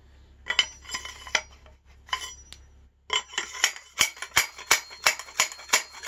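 Park slide hammer sliding down a steel fork steerer and striking the aluminium crown race to drive it onto the fork crown: a few loose metal clinks, then steady sharp metal-on-metal taps, about three a second, from about halfway in.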